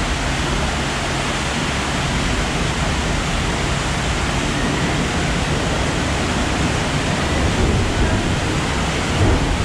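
Steady rushing of water in the boat ride's flume channel, an even hiss-like roar with no breaks.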